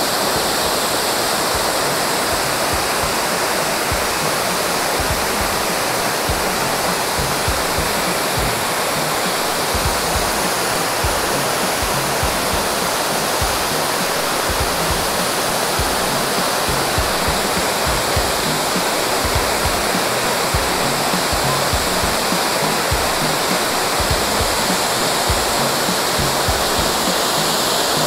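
Shifen Waterfall pouring steadily: a continuous, even rush of falling water.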